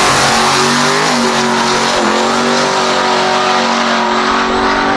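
Drag-racing car engine running hard at full throttle, loud over a dense roar. Its pitch dips briefly about one and two seconds in, then holds steady.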